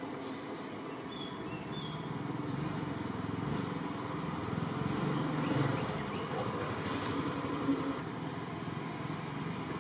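A motor vehicle's engine running, growing louder toward the middle and then easing off, like traffic passing by.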